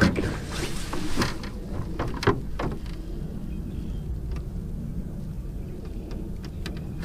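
A few sharp knocks and splashes in the first three seconds as a small northern pike is handled at the side of the boat, then a steady low wind rumble on the microphone over the lapping water.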